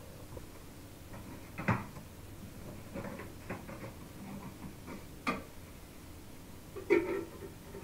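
Scattered sharp clicks and knocks of hands handling fittings in a small unit bath, where the burnt-out light is being dealt with. The loudest knocks come about two seconds in and near the end.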